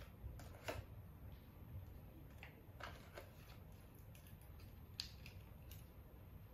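Faint, scattered rustles and crinkles of a small strip of paper being rolled and pressed between the fingers, a few soft crackles a couple of seconds apart.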